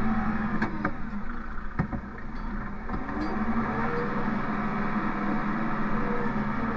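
Tractor engine running steadily, with a few sharp clicks about a second in; the engine note dips around two seconds, then rises and settles again.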